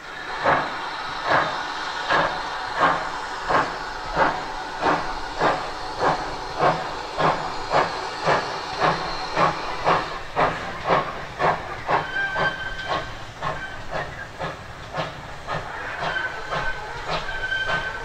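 GWR 57xx pannier tank steam locomotive working a goods train, its exhaust beats over a steady hiss of steam, about one and a half a second and quickening to about two a second. In the second half a thin high tone comes and goes over the beats.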